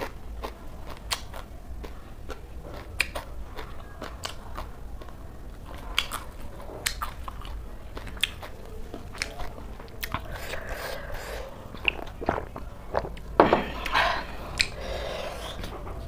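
Close-up chewing of a crunchy raw shredded-cabbage salad (singju), with many short crunches and clicks throughout. A louder cluster of crunching comes about thirteen seconds in.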